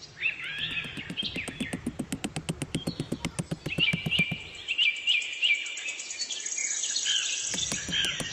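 Small birds chirping in short repeated calls, over a rapid, even clicking of about six or seven ticks a second that stops briefly near the end.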